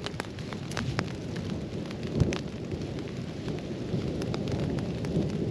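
Continuous rumbling thunder that swells toward the end, with scattered raindrops tapping on the tent and one sharper knock about two seconds in, heard from inside the tent.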